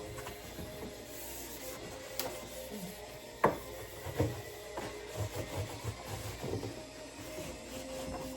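Cloth rubbing and wiping over fridge surfaces, with scattered light knocks and clunks of shelves or containers; the loudest is a single sharp knock about three and a half seconds in.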